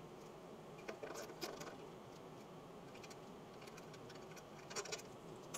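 Faint, scattered clicks of a hand ratchet backing out a bolt on a snowmobile engine's cover, a few about a second in and a short cluster near the end, over quiet room tone.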